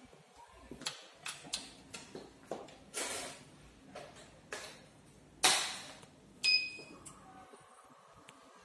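Clicks and metallic knocks from an aluminium-and-steel podium as its chrome handle and top panel are handled, with a louder knock about five and a half seconds in. A short, high ping comes about a second later.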